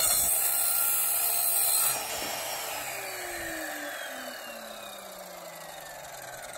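Evolution Rage4 185 mm multi-material chop saw cutting through 22 mm copper pipe. About two seconds in the trigger is released, and the motor and blade spin down with a whine that falls in pitch.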